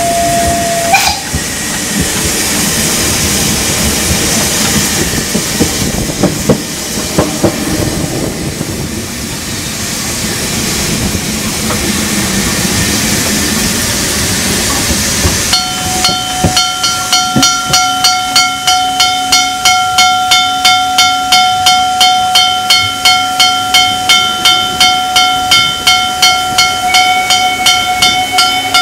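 Saxon IV K narrow-gauge steam locomotive: its steam whistle cuts off about a second in, then steam hisses loudly around the front of the engine. About halfway the locomotive gets under way, its exhaust chuffing evenly about two to three times a second under a steady high tone.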